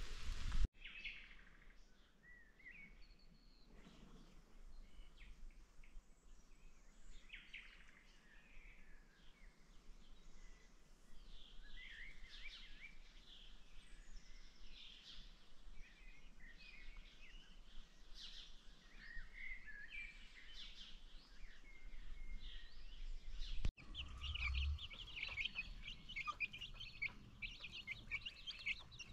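A flock of baby chicks peeping: many short, high peeps scattered throughout, crowding together more thickly in the last few seconds.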